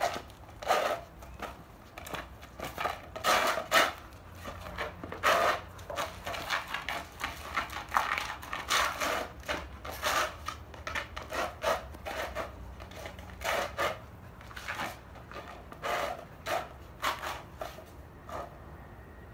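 A plastic frisbee scraping and clattering against concrete in irregular bursts as a six-month-old Rottweiler paws and bites at it. The dog is trying to lift the disc off the flat ground.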